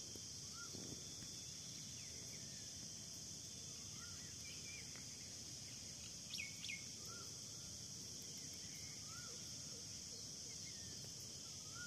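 Faint outdoor ambience: a steady high-pitched insect drone with short bird chirps every second or two, and two quick falling whistles about halfway through.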